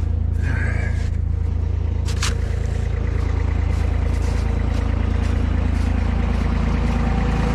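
Engine of the RT6000 forklift running steadily, with a brief squeal about half a second in and a sharp clank about two seconds in.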